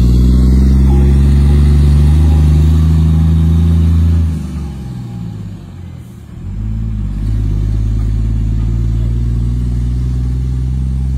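Heavy truck's diesel engine running steadily. A little past the middle its note drops away for about two seconds, falling and then rising again, before it settles into a steady, quieter run.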